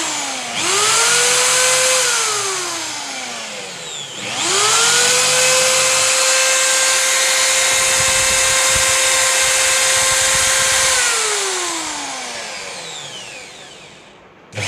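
Black+Decker corded hammer drill running with no load, pulled on twice. Its motor whines up to speed, runs for a second or so and winds down, then spins up again about four seconds in, runs steadily for about seven seconds and coasts down near the end.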